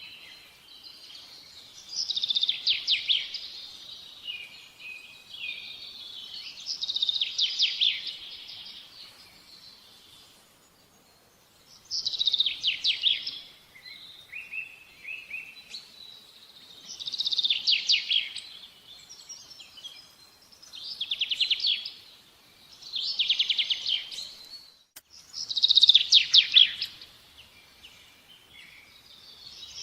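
A songbird singing short, rapid trilled phrases, repeated every few seconds.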